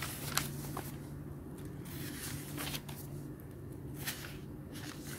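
Soft paper rustling and a few light handling clicks over a faint steady low hum.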